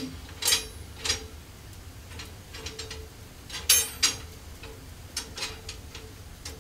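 Hand-forged iron rack pieces clinking against each other and the grate as they are slid into place over a fireplace fire: about a dozen irregular sharp metal clinks with a brief ring.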